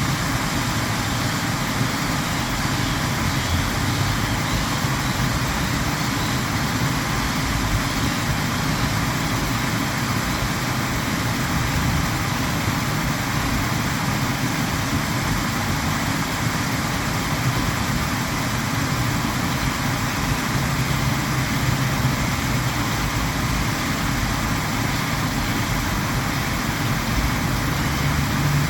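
Water fountain splashing with a steady rushing noise and a faint low hum underneath.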